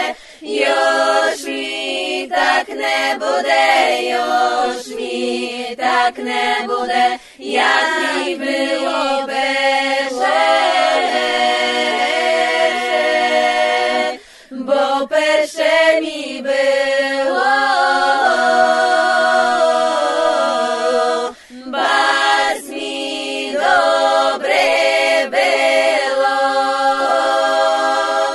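Background music: an a cappella group of voices singing in harmony, with short pauses between phrases.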